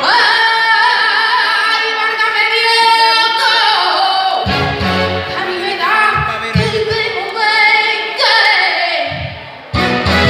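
A woman singing a song through a microphone and PA, holding long notes with wide vibrato and sliding between them. For the first few seconds the voice is almost alone; then accompaniment with a low bass line comes in about four seconds in.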